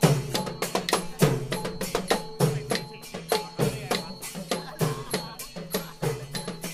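Procession percussion band playing a steady beat: a deep drum stroke about every 1.2 seconds, under quicker drum strikes and ringing small cymbals.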